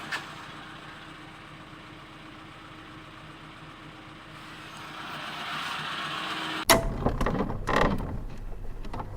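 Freshly overhauled Suzuki Karimun engine idling steadily. About seven seconds in, a sudden, much louder stretch of rumble and sharp knocks begins.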